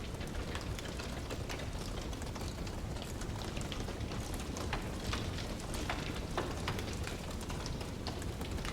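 Wood fire burning in a fireplace, with frequent irregular crackles and pops over a steady low rumble.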